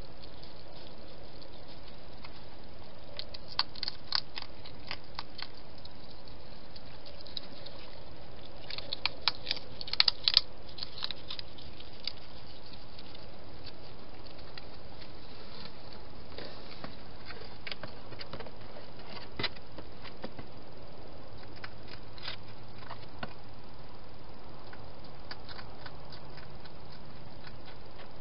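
Wild hedgehog moving about and feeding: scattered sharp clicks and taps, with a busy cluster about ten seconds in, over a steady hiss.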